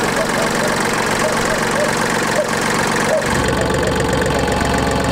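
Yanmar FX175 mini tractor's diesel engine idling steadily just after being started. A little over three seconds in, its low note shifts and gets heavier.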